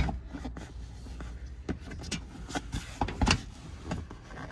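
Irregular clicks and knocks of a plastic under-engine splash shield being handled and pushed into place against a car's underside. The loudest knock comes a little past three seconds in.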